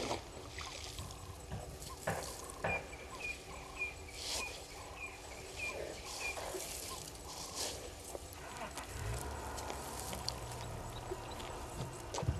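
Young African elephants scuffing and kicking dry dirt, with short sharp scrapes and knocks and the soft spray of dust being thrown. A bird calls in short repeated notes, about two a second, for a few seconds, and a low steady hum comes in about two-thirds of the way through.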